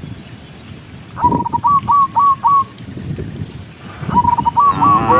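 A bird singing the same short phrase twice, a held whistle followed by four quick hooked notes. A cow begins to moo near the end.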